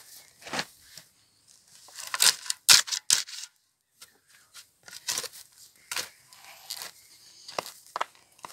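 Steel spade being driven into grassy, rooty soil with a boot and levered over: grass roots tearing and clods crunching in a run of irregular scrapes, loudest about two to three seconds in.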